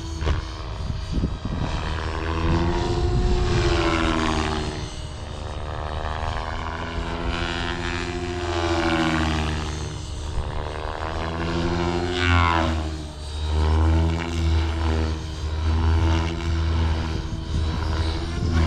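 Blade Fusion 550 electric R/C helicopter's rotors and motor whining in flight, the pitch rising and falling several times as it swoops past and maneuvers.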